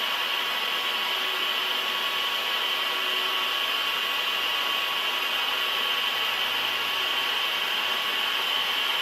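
Machinery running steadily: an even hiss with a few faint, constant high whining tones and no knocks or breaks.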